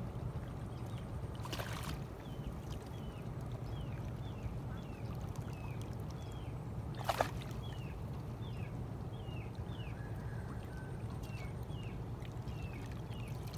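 Steady low rush of wind and river water, with a small bird chirping over it in short falling notes about twice a second. Two brief sharp sounds come about two seconds and seven seconds in.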